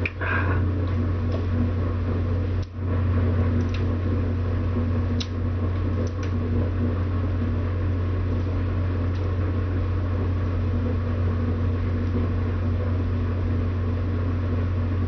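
Steady low machine hum with faint steady tones above it, dipping briefly about two and a half seconds in, with a few faint clicks.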